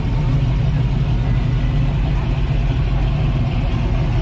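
Car engine idling steadily, low-pitched and even, with no revving.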